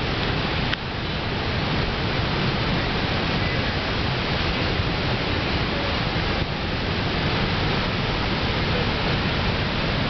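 Niagara Falls roaring: a steady, dense rushing noise of the water crashing into the basin, with two brief dips in level, about a second in and about six seconds in.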